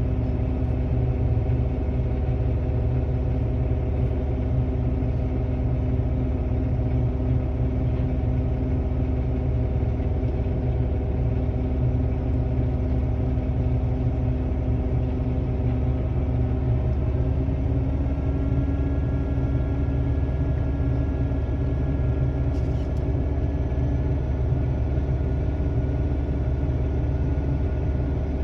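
A heavy engine running steadily with a deep rumble, rising slightly in pitch about two-thirds of the way through.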